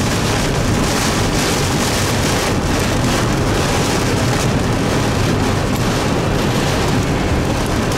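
Heavy wind-driven rain beating on a moving vehicle, heard from inside the cabin as a steady loud rush.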